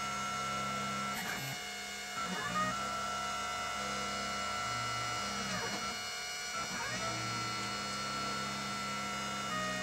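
Stepper motors of a CNC machine driving a pyrography pen, a steady whine whose pitch sweeps down and back up about four times as the axes slow and speed up at changes of direction, over a low hum that switches on and off.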